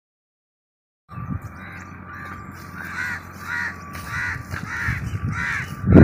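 A bird giving harsh, caw-like calls over and over, about two a second, starting about a second in.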